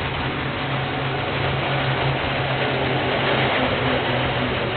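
KiwiRail diesel locomotive passing, its engine giving a steady low drone over continuous rumbling train noise, heard through a security camera's microphone.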